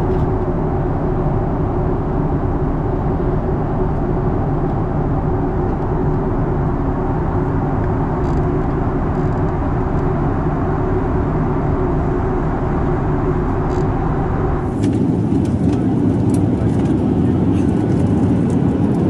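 Steady cabin drone of a Boeing 737-800 in flight, the rush of engines and airflow heard from inside the cabin. About fifteen seconds in it changes abruptly to a slightly louder, rougher rush with scattered clicks and knocks.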